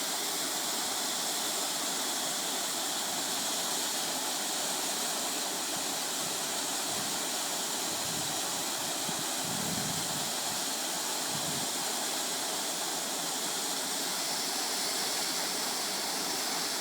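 Mountain wind rushing in a steady hiss, with a few low gusts buffeting the microphone about seven to twelve seconds in.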